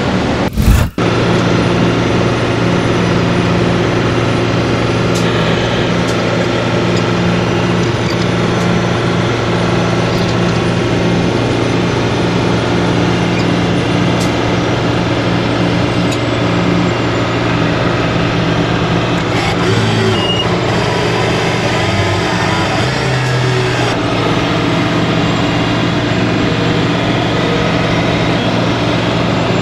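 Heavy rotator tow truck's diesel engine running steadily at a constant speed, a low, even hum. It cuts out briefly about a second in.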